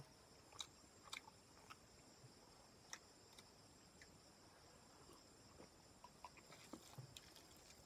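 Near silence with faint, scattered soft clicks and smacks of someone eating curry and rice by hand and chewing with mouth closed, over a faint steady high-pitched tone.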